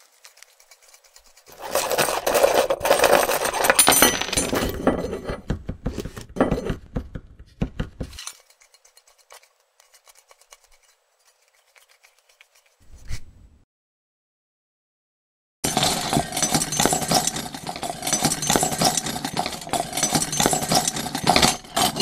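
Small metal pieces clinking and clattering together in a dense burst lasting several seconds. A short knock follows, then a pause of near quiet, then a second long burst of metallic clatter.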